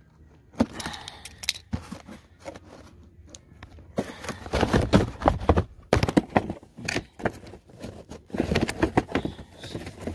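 Cardboard box of firework ball shells being wrestled and torn open by hand: irregular rustling, scraping and tearing with many sharp knocks, in two busier stretches about four seconds in and near the end.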